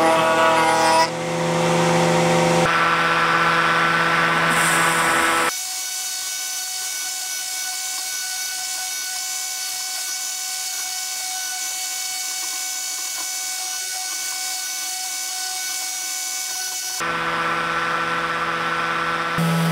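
Router table running for the first few seconds as zebrawood slats are fed past the bit. The sound then cuts to a quieter, steady high whine from a Festool random-orbital sander clamped upside down, with slat edges held against its pad, and a louder tool run comes back near the end.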